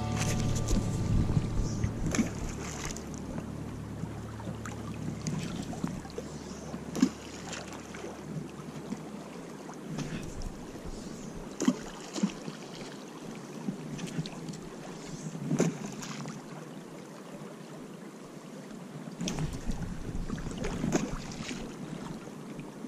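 Fast river current rushing and rippling close to the microphone, with wind buffeting it now and then and several short sharp splashes or knocks, the loudest about halfway through.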